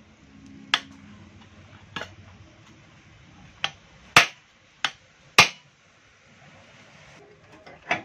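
Hammer knocking the universal-joint yoke into the end of a propeller-shaft tube, six sharp metal knocks at uneven intervals, the loudest two about four and five and a half seconds in.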